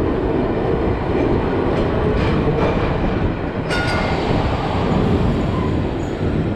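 A 1928-built Milan 'Ventotto' tram rolling slowly along street rails, a steady low rumble from its wheels and running gear. One sharp click sounds about three and a half seconds in.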